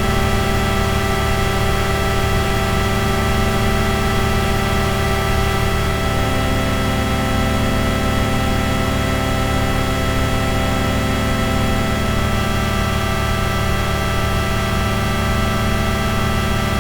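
Dense ambient drone music: a heavy low rumble and many held tones layered under a steady hiss, barely changing.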